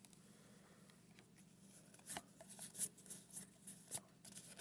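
Faint rustling and light clicks of Pokémon trading cards being handled, a few in the second half, over a faint low hum.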